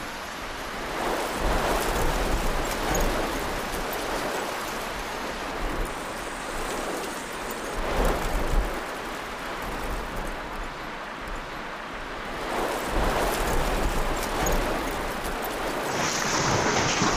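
A hailstorm: hail and heavy rain pelting down in a steady rushing noise that swells louder and shifts in character several times.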